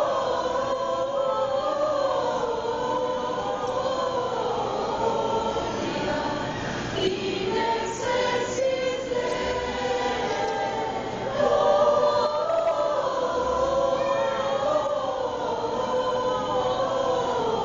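Mixed choir of women's and men's voices singing long held phrases, with a brief break about seven seconds in and a louder swell a little after the middle.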